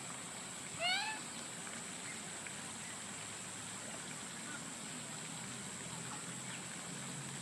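A single short animal call about a second in, rising in pitch with several harmonics, over a steady high-pitched whine and faint background hiss.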